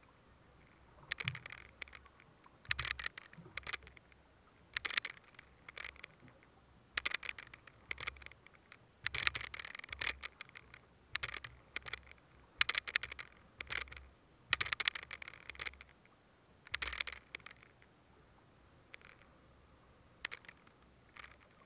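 A fishing handline being jerked and pulled through a gloved hand over the boat's edge, making short scraping rustles about every one to two seconds. They stop a few seconds before the end, leaving only a couple of faint ones.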